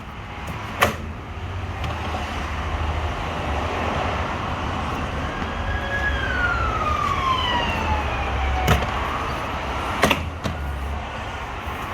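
Plastic retaining clips of a car door trim panel snapping loose as the panel is pulled off: a few sharp snaps, one about a second in and three more between nine and ten and a half seconds. Under them runs a steady low rumble, and from about six seconds in a tone falls steadily in pitch for nearly three seconds.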